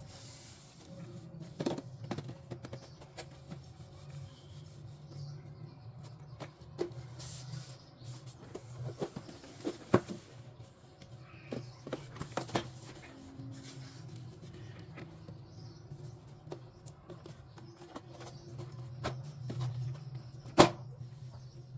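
Toy kitchenware and its packaging being unpacked and handled: rubbing and rustling with scattered light taps and clicks. The sharpest click comes near the end.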